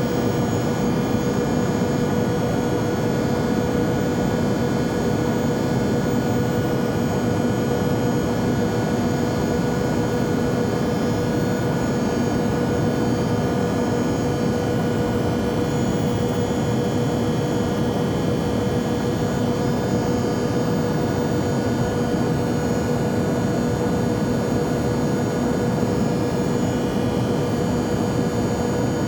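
Jet airplane engine noise: a steady, unchanging drone with a constant humming tone running through it.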